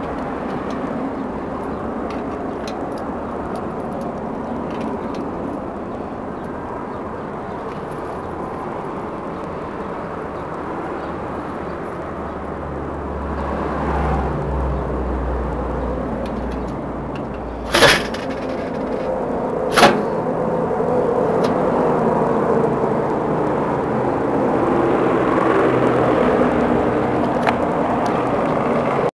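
Steady outdoor street noise with a low vehicle rumble swelling midway, broken by two sharp cracks about two seconds apart, which are the loudest sounds.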